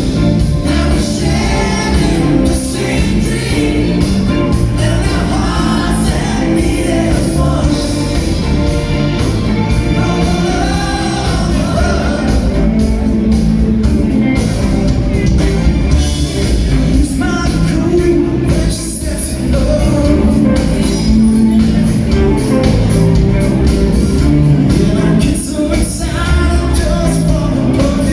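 Pop-rock song with lead singing over a steady beat.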